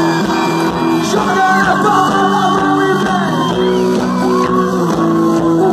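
Live sertanejo pop band playing with singing over amplified concert speakers, heard from within the crowd.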